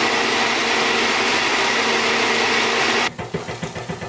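Countertop jug blender running steadily, pureeing red bell peppers, then stopping abruptly about three seconds in. A quieter, rapid crackling follows.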